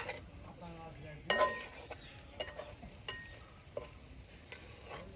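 A flat metal spatula stirring thick pork fry in a large metal cooking pot, scraping the bottom and knocking against the pot in a string of short strokes. The loudest knock comes a little over a second in.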